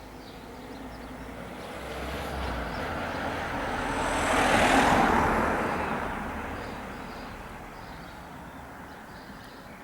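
A car passing by, its road and engine noise rising to a peak about halfway through and then fading away.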